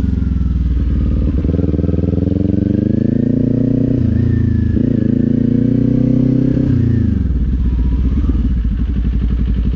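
Kawasaki Z400's parallel-twin engine pulling hard: the revs climb from about a second in, dip briefly around four seconds as it shifts up, climb again, then fall away at about seven seconds as the throttle closes. It settles to a low, steady run.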